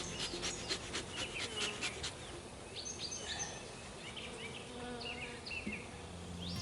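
Honey bees buzzing in the air around a hive as a steady low hum, with short high chirps over it.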